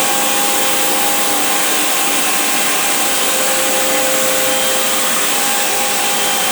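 A giant grinder running steadily with its big wheels spinning: an even motor whir with two steady hum tones and a hiss over the top.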